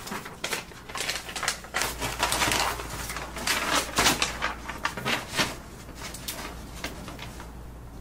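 Paper crinkling and rustling as an envelope is handled and opened, in a quick, irregular run of crackles that dies down near the end.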